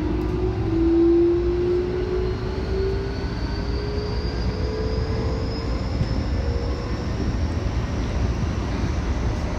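Keikyu electric train heard from inside the front car, its traction motors whining with a slowly rising pitch as it picks up speed. Under the whine runs a steady rumble of wheels on rail.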